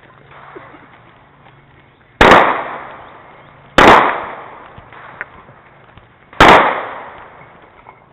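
Three handgun shots, unevenly spaced (about a second and a half, then two and a half seconds apart), each followed by a trailing echo that dies away over about a second.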